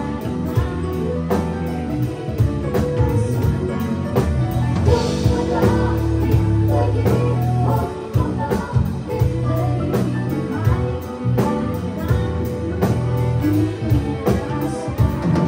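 Live band playing a song: a woman singing into a microphone over electric bass, electric guitar and a drum kit keeping a steady beat.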